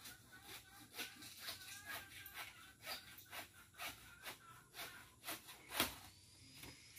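Handsaw cutting wood, short rasping strokes at about two a second, the strongest near the end.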